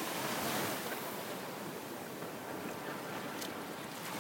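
Ocean surf washing ashore, heard as a steady, even hiss.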